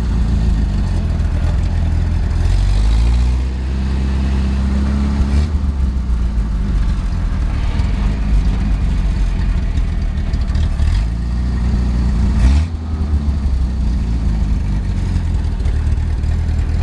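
1947 Willys Jeep's four-cylinder flathead engine running while driving, rising in pitch as it speeds up about two seconds in and again about eleven seconds in. A single sharp thump comes about twelve and a half seconds in.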